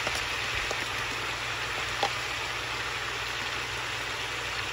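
Cabbage and onions sautéing in oil in a pot, with a steady sizzle over a low steady hum and a light click about two seconds in.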